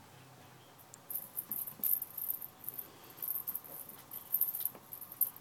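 Crinkly, high-pitched rustling of a shiny tinsel wand cat toy being waved, in quick irregular bursts starting about a second in, with a few light taps.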